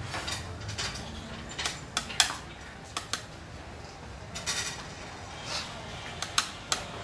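Xiangqi pieces clicking against each other in a player's hand: a dozen or so short, sharp, irregular clicks, some in quick pairs.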